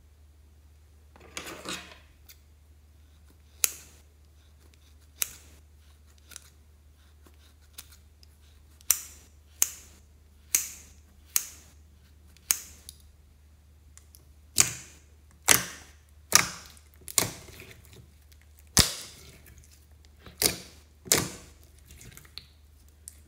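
Scissors snipping a foam squishy toy into chunks: a long series of sharp snips at irregular intervals, some under a second apart.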